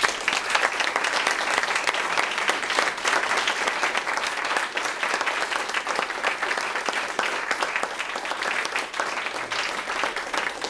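Audience applauding, a dense patter of many hands clapping that starts all at once.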